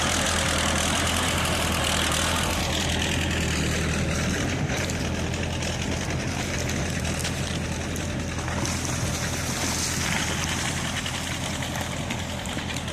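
T-70 crawler tractor's diesel engine running steadily while skidding logs, growing slightly quieter after a couple of seconds.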